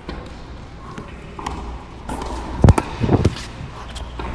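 Tennis ball and racket impacts during play: one hard, loud thud a little past halfway, then a quick cluster of knocks. The sound is picked up by a watch microphone on a player's wrist.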